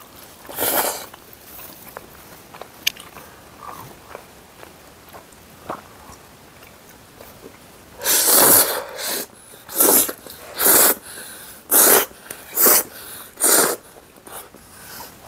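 Spaghetti noodles slurped in one long, loud suck about eight seconds in, followed by five short, loud bursts of breath about a second apart. Quieter chewing and small mouth sounds come before.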